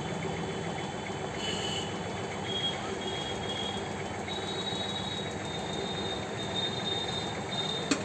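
Steady background road-traffic noise, an even rumble with faint high whining tones joining in after about a second and a half. A single short click comes near the end.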